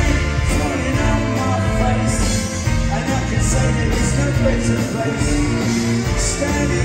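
Live band playing a pop-rock song, a man singing lead into a microphone over electric bass, drums and congas.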